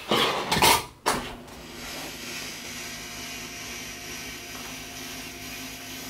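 Neck joints cracking during a chiropractic cervical adjustment: a loud run of pops lasting under a second, then one sharp crack just after. A faint steady hum follows.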